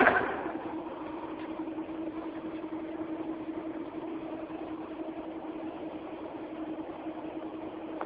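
Plasma cutting machine humming steadily with one constant mid-pitched tone, after a sudden loud clunk right at the start as a button on its control panel is pressed.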